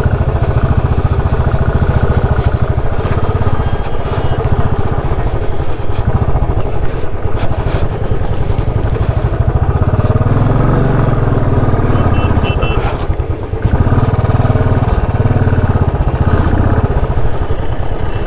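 Royal Enfield Classic 350's single-cylinder engine running under way as the bike is ridden, heard close up as a steady low pulsing. It swells louder a couple of times and drops briefly about two-thirds of the way through.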